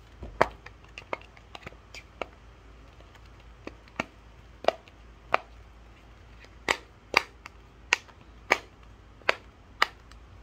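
Silicone planet dimple fidget toy's bubbles being pressed in and popping: a series of sharp clicking pops, about fifteen in all, spaced irregularly and coming faster in the second half.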